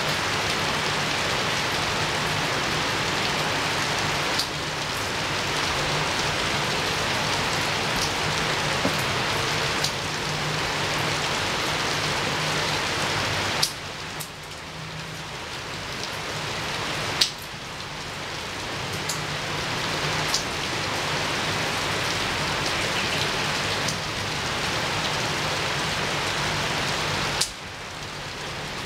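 Steady heavy rain falling on and against a window, with a few sharp drip taps. The rain's level drops suddenly several times, about a third of the way in and near the end, then builds back up.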